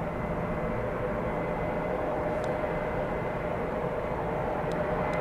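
Jet airliner engines, an Airbus A330-200's, running with a steady rushing noise and a held whine, growing slightly louder toward the end.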